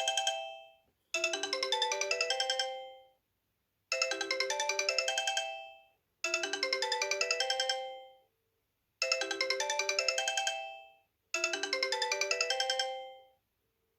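Sony Ericsson Xperia Active smartphone ringing with an incoming call: its ringtone, a short, fast run of chiming notes, plays from the loudspeaker and repeats about every two and a half seconds, with silence between repeats.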